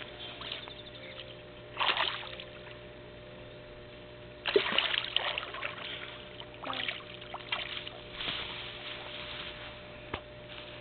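A fish shot with a bowfishing arrow splashing at the water's surface as it is reeled to the bank on the line. The splashing comes in several short bursts, the loudest about four and a half seconds in.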